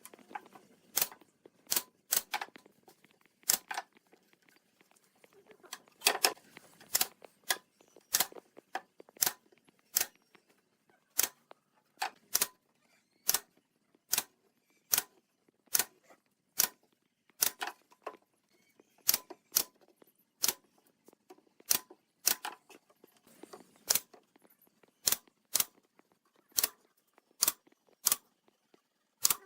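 A long series of short, sharp clicks or knocks, roughly one to two a second, with faint handling noise between them.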